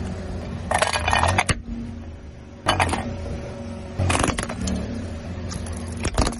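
A car tyre crushing bubble wrap and styrofoam on asphalt: several short bursts of crackling and crunching, about a second in, near three seconds and just after four seconds, then a sharp snap near the end, over a steady low hum.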